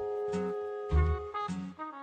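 Background instrumental music: held melody notes over a bouncy bass beat.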